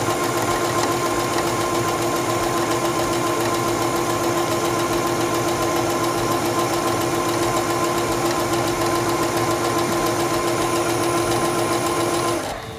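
Singer Stylist 7258 computerized sewing machine running steadily as it sews a serpentine stitch at a narrowed stitch width: an even motor hum with the fast chatter of the needle. It stops just before the end.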